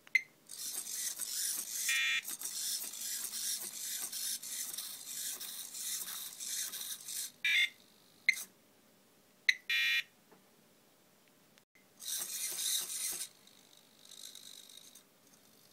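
Electronic sound effects from a small beeper on a Picaxe 08M2-controlled hexapod robot: a long harsh, pulsing buzz, then a few short chirps and a beep, then another shorter buzz near the end.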